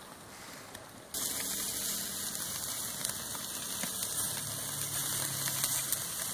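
Chicken kebabs sizzling on a Weber barbecue grill: a steady hiss with small crackles that starts abruptly about a second in.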